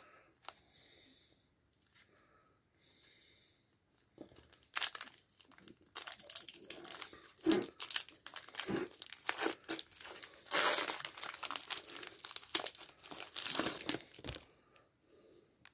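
Foil wrapper of a hockey trading-card pack being torn open and crinkled by hand. It is an irregular run of crackling and rustling that starts about four seconds in and is loudest a little past the middle.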